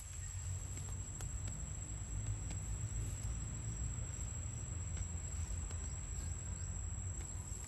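A steady, high-pitched insect drone, such as a cricket, over a low rumble and a few faint clicks.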